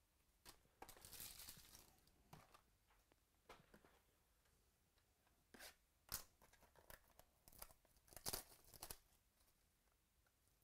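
Faint rustling and crinkling of a card-pack wrapper and trading cards being handled, with a few soft clicks. The crinkling is loudest around eight to nine seconds in.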